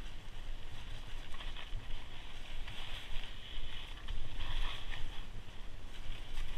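Mountain bike rolling along a dry, rocky singletrack: tyres crunching over gravel and loose stones, louder in patches, with steady wind rumble on the camera microphone.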